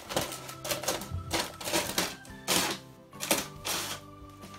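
Brown kraft packing paper crackling and tearing in irregular bursts as parts are unwrapped by hand, over background music with long held notes.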